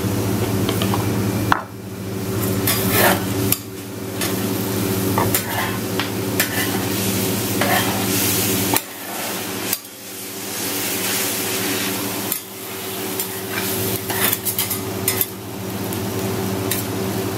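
Udon noodles with offal and vegetables sizzling on a flat steel teppan griddle while metal spatulas scrape and clack irregularly against the hot plate, tossing the noodles. A steady low hum runs underneath.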